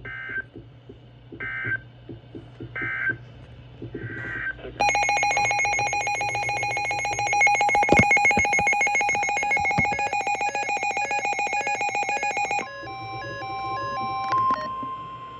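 Emergency Alert System signalling between two warning messages: four short two-pitch digital data bursts about 1.3 s apart, then a loud, rapidly pulsing alert tone for about eight seconds, then a steady tone with a pattern of stepping beeps over it.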